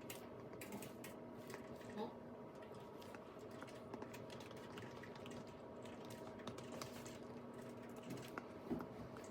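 Typing on a computer keyboard: an irregular run of light key clicks over a faint steady hum.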